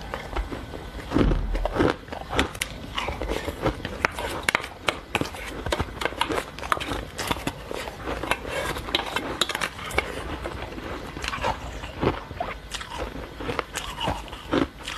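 Close-miked crunching and chewing of crushed ice: a dense run of sharp crackles, with one louder thump about a second in.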